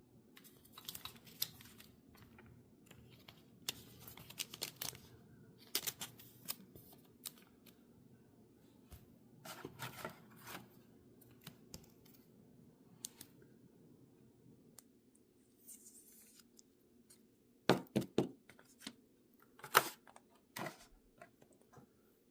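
Hands handling trading-card packaging: scattered light crinkles, taps and clicks of cardboard and plastic, with a few louder clicks near the end, over a faint steady room hum.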